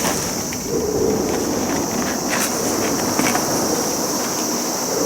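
Steady high-pitched insect buzz over outdoor background noise, with a few faint taps.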